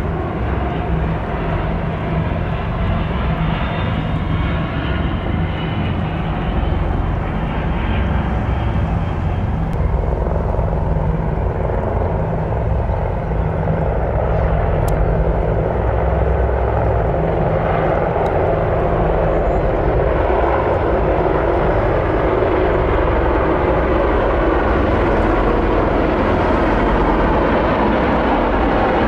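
Military aircraft flying past: a continuous heavy drone from C-17 transport jet engines, joined from about ten seconds in by the noise of a formation of AH-64 Apache attack helicopters' rotors and turbines. The noise grows slightly louder toward the end.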